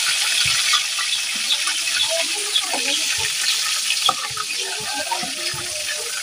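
Fish frying in oil in a wok: a steady sizzle with scattered small pops and crackles.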